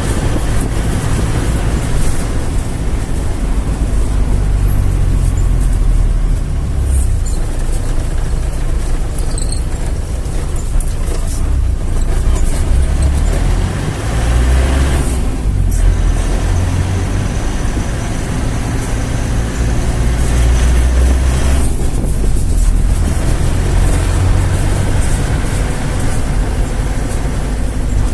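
A vehicle being driven along a road: a steady low rumble of engine and road noise that swells and eases a little as it goes.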